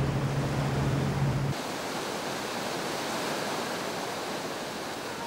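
A steady low hum with a rumble beneath it, which cuts off abruptly about a second and a half in and gives way to an even rushing noise that slowly fades.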